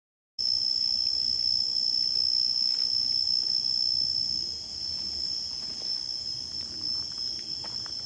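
Steady, high-pitched night-time chorus of insects in tropical forest, cutting in abruptly just after the start, with faint scattered ticks in the second half.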